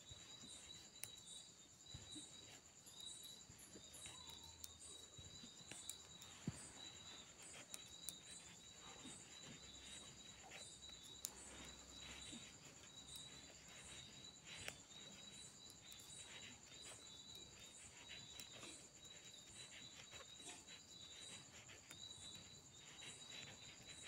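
Near silence: metal knitting needles ticking faintly now and then as a purl row is worked, over a faint, steady high-pitched chirping.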